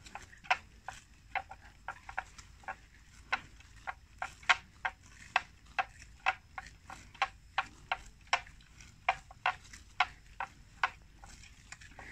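Water buffalo grazing: a run of sharp tearing clicks, about two to three a second, as grass is pulled off in bites. They thin out near the end.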